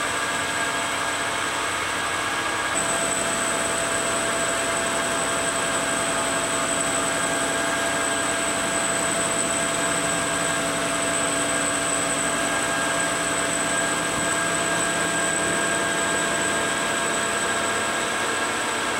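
Enco metal lathe running steadily with its tool cutting an aluminum pulley blank. A steady high whine comes in about three seconds in.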